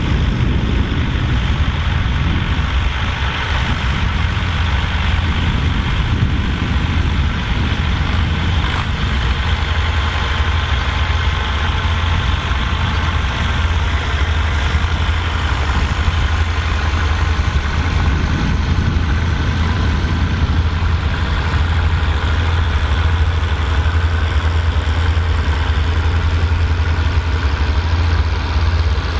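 Volvo BM 814 tractor's diesel engine running steadily under load, pulling a six-furrow plough through a field, with a deep, even engine drone.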